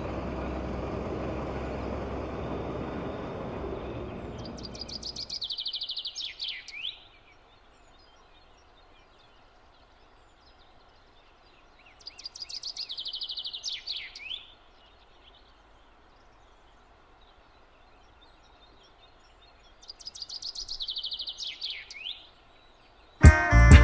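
A farm tractor towing a field cultivator runs past and fades out about five seconds in. Then a songbird sings three phrases several seconds apart, each a fast trill of repeated high notes ending in a falling sweep. Music starts just before the end.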